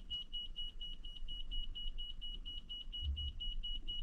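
Handheld EMF meter's warning alarm beeping: a rapid train of short, high-pitched beeps at one pitch, about four and a half a second, signalling a reading above its alarm threshold. A brief low bump about three seconds in.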